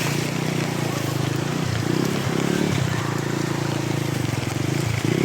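An engine running steadily with an even low pulsing note.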